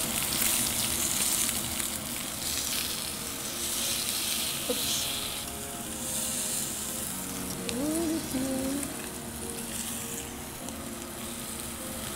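Mackerel fillets sizzling skin side down on a ridged grill pan over a gas flame, a steady frying hiss that swells and eases slightly.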